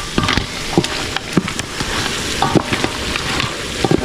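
Chicken frying in a pan, sizzling steadily while it is stirred, with the utensil clicking and knocking against the pan now and then.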